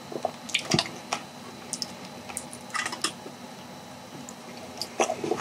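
Eating sounds made up of scattered small clicks and taps, a few a second. Disposable wooden chopsticks pick at sauced chicken pieces on aluminium foil, and there are mouth and chewing sounds as a piece is bitten near the end.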